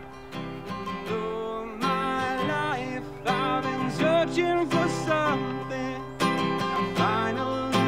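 Steel-string acoustic guitar strummed in a steady rhythm, with a man's singing voice coming in about two seconds in and growing louder.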